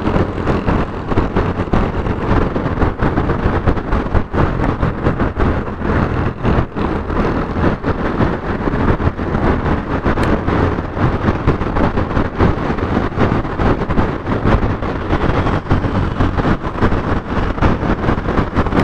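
Motorcycle riding noise: the bike's engine and tyre noise under wind buffeting the action camera's microphone, a steady, dense rush that flutters rapidly.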